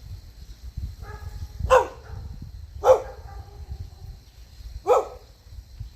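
A dog barking three times, single sharp barks spaced about a second or two apart, over low rumbling and handling noise.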